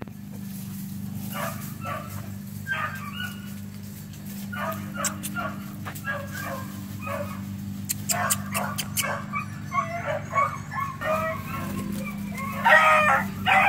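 Puppies yipping and barking in short, high, repeated calls that come in clusters, loudest near the end. A steady low hum runs underneath.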